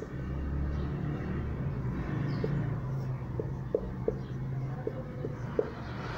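A steady low rumble, with several short, faint ticks from a marker writing numbers on a whiteboard.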